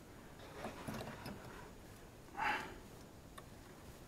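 Faint handling noises of hands working at a window air conditioner's opened front and wiring: light plastic clicks and ticks, with one short scraping rustle about two and a half seconds in.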